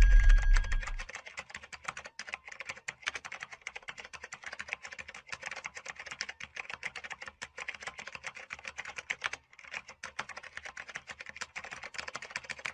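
Rapid, continuous keyboard typing clicks, a typing sound effect with a brief pause about nine and a half seconds in. Music fades out within the first second.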